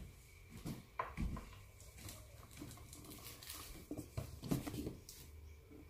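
A few light knocks and taps against a quiet room: one about a second in, then several around four to four and a half seconds in.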